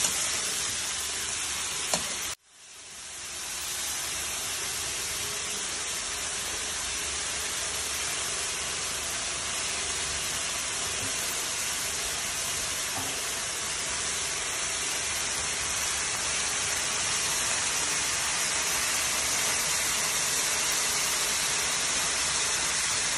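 Marinated chicken breast pieces with onion, garlic and red bell pepper sizzling steadily in a hot wok, the chicken about half-cooked. A little over two seconds in, the sound cuts out abruptly and fades back in over about a second.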